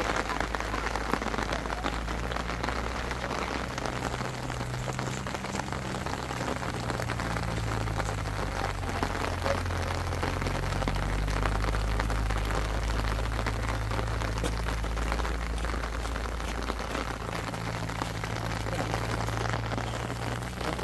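Steady rain falling, with many fine drops striking, over a steady low hum.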